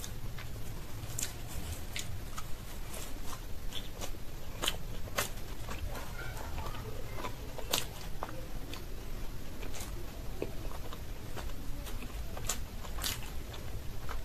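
Close-miked chewing and biting of deep-fried green-pea kochuri with potato curry, with many sharp, irregular crackling clicks from the fried dough.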